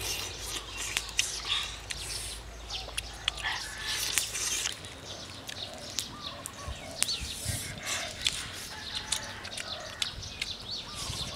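Irregular rustling and small sharp clicks from handling a grilled fish and banana leaves over dry leaf litter, with birds chirping in the background.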